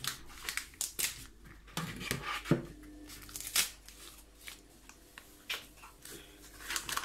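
Paper sachet of powdered cream mix being handled and shaken out over a stainless steel pot: crinkling and rustling with scattered taps and knocks. One sharper knock about two and a half seconds in leaves a brief ring.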